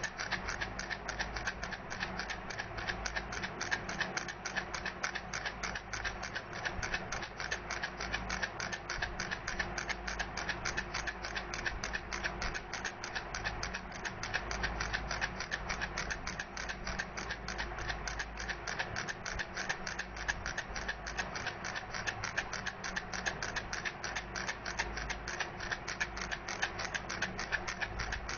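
Baby rattle shaken steadily, giving a rapid, even run of clicks that never stops.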